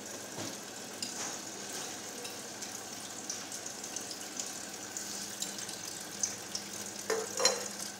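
Kitchen tap running steadily into a stainless steel sink as a drinking glass is rinsed under the stream, with a few light clinks.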